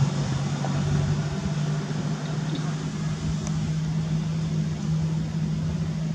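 Steady low drone of an engine running, holding an even pitch throughout, over a haze of outdoor background noise.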